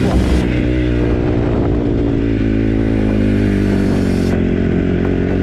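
Honda CRF150R dirt bike's single-cylinder four-stroke engine running at a fairly steady pitch.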